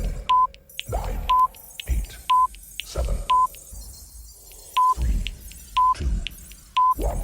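Electronic countdown-timer beeps: short beeps at one steady pitch, about one a second, each paired with a low whoosh-like hit. There is one longer gap, a missed beat, near the middle.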